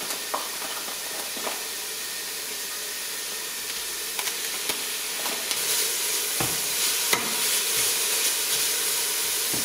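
Ground beef sizzling in hot oil with chopped onion and garlic in a stainless steel pot, stirred with a plastic spatula. The steady sizzle gets a little louder in the second half, with a few short knocks and scrapes of the spatula against the pot.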